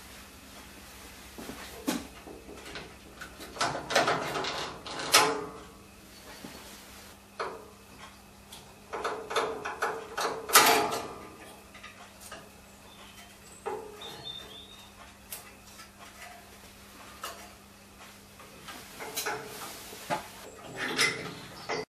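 Irregular clicks, knocks and rattles of plastic and metal engine parts being handled as the carburettor's cover, fuel line and governor linkage are taken off a Honda lawn mower engine, with the loudest knocks about four and ten seconds in.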